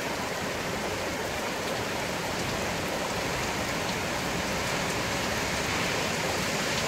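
Heavy rain pouring down in a dense, steady hiss.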